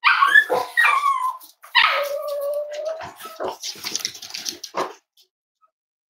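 Cavalier King Charles spaniel yipping and whining: a few short high yips, then one longer whine that slides down in pitch, followed by a couple of seconds of quick clicks and clatter.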